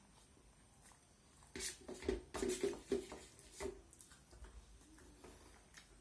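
Close-miked chewing of chicken: a run of irregular wet mouth and chewing sounds from about one and a half seconds in until nearly four seconds, quieter before and after.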